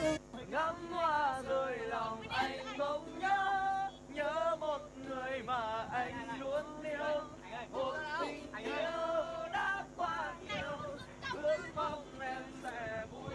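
A song: one singing voice with sliding, wavering pitch over a soft backing track.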